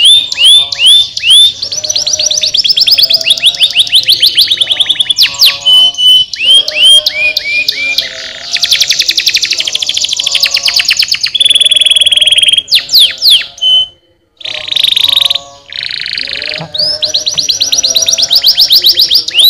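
Domestic canary singing a long song of rapid trills, repeated sweeping notes and buzzy rolls, with a brief pause about two-thirds of the way through.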